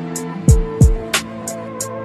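Background music: a beat with two deep kick drums that drop in pitch about half a second in, a sharp snare hit just after a second, and a quick run of hi-hat ticks, over sustained held notes.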